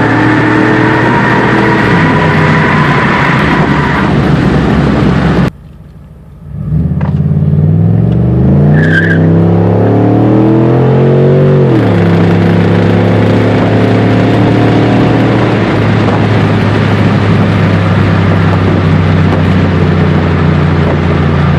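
Chevrolet Monte Carlo SS's V8 engine heard from inside the cabin under acceleration, its pitch climbing. About five seconds in the sound cuts out abruptly for a moment, then the engine pulls again with the pitch rising steadily for about five seconds, drops suddenly, and settles into a steady drone.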